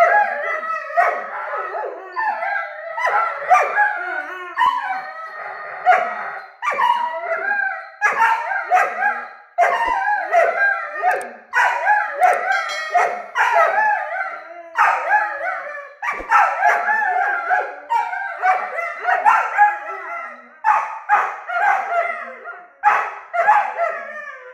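Weimaraner puppies "arguing" in play, vocalizing almost without pause in long, wavering howl-like calls mixed with barks, broken only by short gaps.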